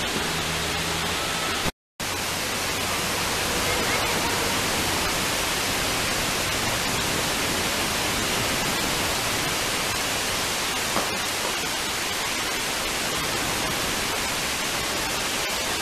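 Steady rush of water pouring over a dam spillway, an even hiss that cuts out for a moment about two seconds in.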